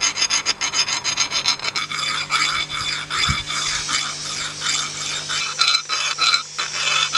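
A round file rasping back and forth inside the eye of a steel tomahawk head (Cold Steel Trail Hawk), taking off the sharp burrs. Short quick strokes at first, then longer strokes from about two seconds in.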